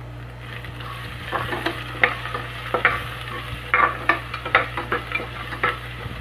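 A steel spoon scraping and clinking irregularly against the base of a pressure cooker, starting about a second in, as chopped carrots, crushed ginger and garlic and whole spices are stirred in melted Dalda, with a light sizzle of frying underneath.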